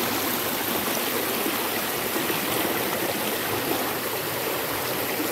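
Shallow rocky creek running over boulders in small cascades, a steady rushing and splashing of water.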